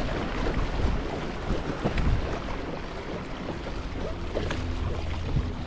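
Water splashing and lapping along the hull of a moving kayak, with wind buffeting the microphone.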